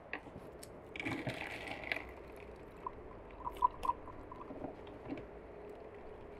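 Pomegranate halves squeezed in a hand-held metal lever juice press, fruit squishing and juice pouring into a glass. A burst of squeezing about a second in, then a few small plinks of juice dripping into the glass.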